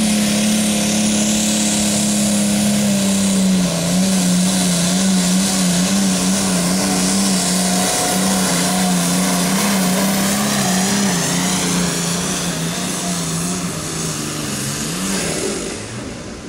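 Pulling tractor's engine at full throttle dragging a weight-transfer sled down the track, its pitch wavering up and down through most of the pull, then easing off and fading near the end.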